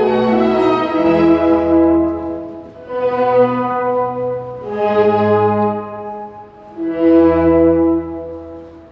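Orchestral music with sustained chords that swell and fade in four phrases of about two seconds each.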